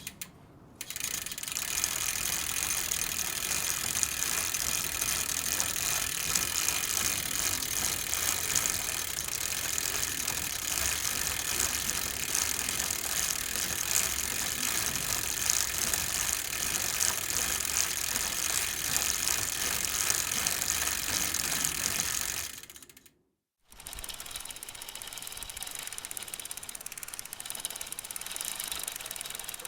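Bicycle drivetrain being pedaled: chain and freewheel ratchet clicking rapidly and steadily. The sound fades out a little over 20 seconds in, stops for about a second, then a quieter stretch of the same clicking starts.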